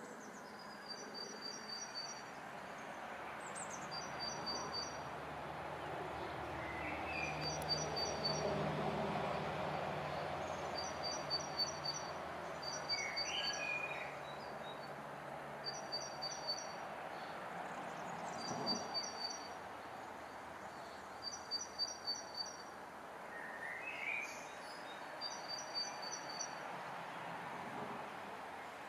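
Garden ambience: a high, pulsed chirping repeats about once a second, with a few short bird calls in between. A broad background noise swells for a few seconds around eight seconds in.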